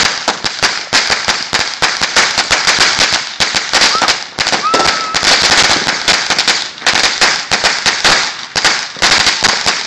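A 4,000-count string of firecrackers going off, a rapid, unbroken crackle of sharp bangs.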